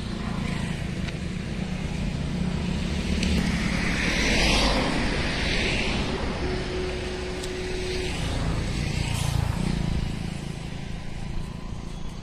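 Road traffic noise with a steady low rumble; a vehicle passes, swelling and fading, about four to six seconds in.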